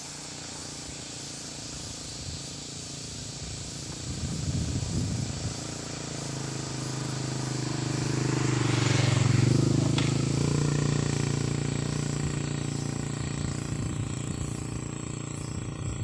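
A motor vehicle passing by: its engine hum swells to a peak about halfway through and then slowly fades. Underneath are a steady outdoor hiss and a thin, steady high-pitched whine.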